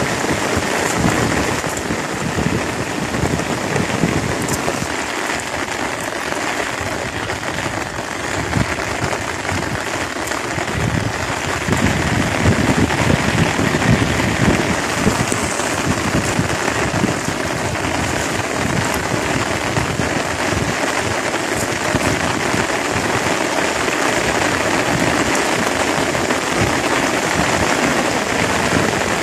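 Steady rain falling on a pond and its grassy bank, an even hiss that grows a little louder about twelve seconds in.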